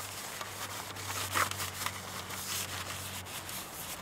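A paper towel rubbing and wiping across the inside of a metal fire-pan tin, with paper crinkling and one sharper scrape about a second and a half in. The towel is wiping off excess olive-oil cooking spray to leave a light coat of oil.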